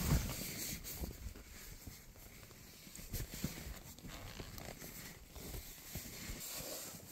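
Footsteps in deep snow, a string of irregular soft steps.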